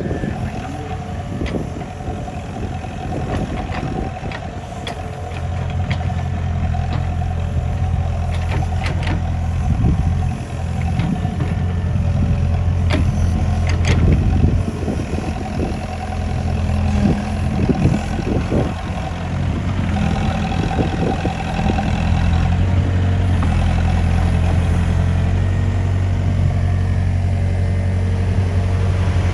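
Heavy diesel engine of the excavator and dump truck running steadily, getting louder about five seconds in and again past the twenty-second mark, with scattered metal knocks and clanks in the middle. It is heard while the machines work to free a dump truck bogged in soft ground.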